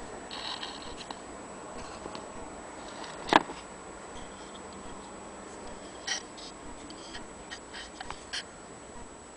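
Handling noise of a metal HMV No. 5B gramophone soundbox being picked up and turned in the fingers: light rubbing and small clicks, with one sharp knock about three and a half seconds in and a few more clicks near the end.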